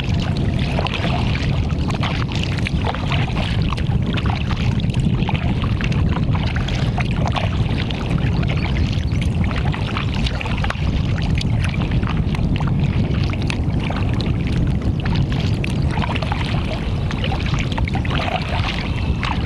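Choppy water slapping and splashing against a canoe hull as it is paddled into the wind, over a steady low rumble of wind on the microphone.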